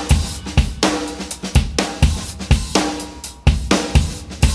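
Background music with a steady rock drum beat of kick, snare and cymbals.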